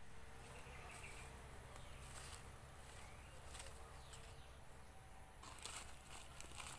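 Faint insects buzzing and chirping steadily in the undergrowth, with light rustling of leaves and plants as they are handled, a little louder near the end.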